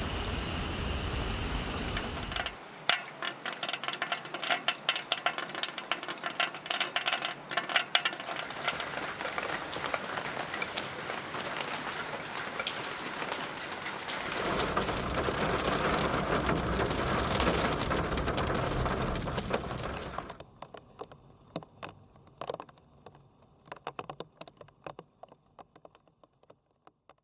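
A run of different rain recordings cut one after another: steady rain, then loud separate drops hitting a hard surface, then a steadier fall, then heavier rain, and finally sparse single drips that thin out near the end.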